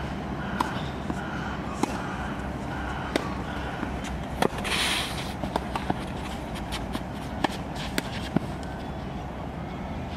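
Tennis ball being struck by a racket and bouncing on the court: a series of sharp knocks, irregularly spaced, over a steady low background hum, with a short hiss just after the middle.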